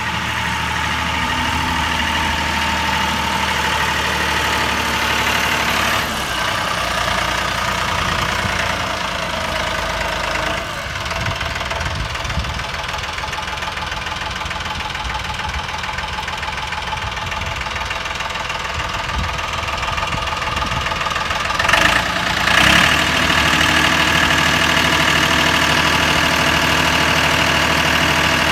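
Mahindra utility tractor's diesel engine running while the tractor drives about and works its front-end loader, the engine note rising and falling. A brief louder burst comes about three-quarters of the way through.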